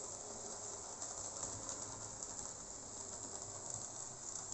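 Jouef SNCF 140C 2-8-0 model steam locomotive running on the layout: a faint, steady whir from its five-pole motor and rubber belt drive, with light clicks of the wheels on the track.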